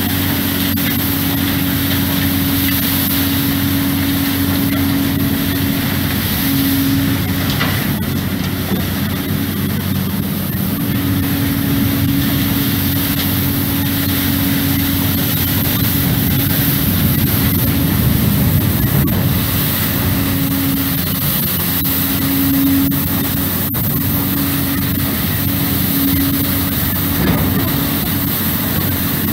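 Heavy machinery running steadily: a mobile crane's engine and hydraulic system driving a crane-mounted hydraulic brush cleaner for coal wagons. A steady low hum runs through it and breaks off briefly a few times.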